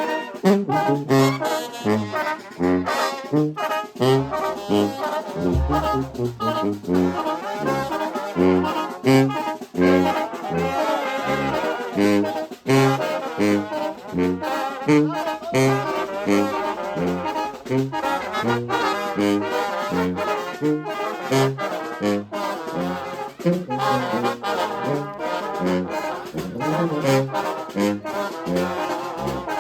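Live brass band (banda de viento) playing a huapango, with brass carrying the tune over a bouncing low bass line and steady drum hits.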